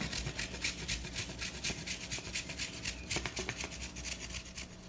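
A bar of white chocolate scraped against a metal box grater: rapid rasping strokes, several a second, that stop near the end.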